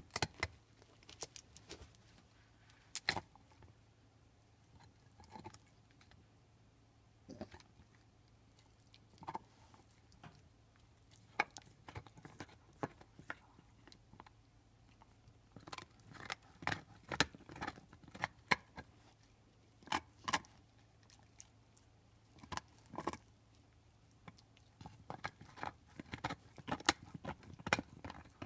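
Pit bull gnawing a big beef bone: irregular crunches and cracks of teeth on bone, a few at a time at first, coming thicker in the second half and most densely near the end.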